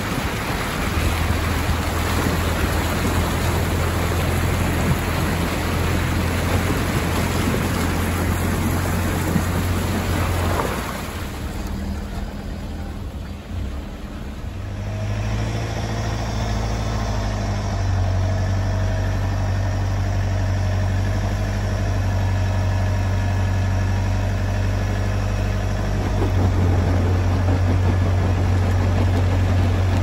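A four-wheel drive's engine idling, heard from just outside the vehicle. For the first ten seconds or so it is under the rush of creek water. Then the water noise drops away, and the engine idles on steadily to the end.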